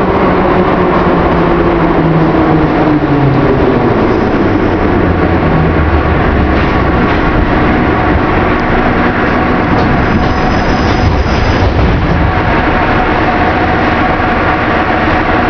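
Old-model metro car slowing into a station: the traction motor whine falls in pitch over the first few seconds as the train brakes, then the car stands with a steady rumble and hum. A brief high-pitched tone sounds about ten seconds in.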